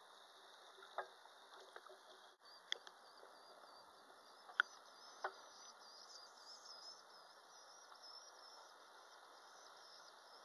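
Faint underwater ambience picked up by a waterproof pocket camera: a low hiss with scattered sharp clicks and crackles, the loudest about halfway through, and a faint warbling high tone from about three seconds in.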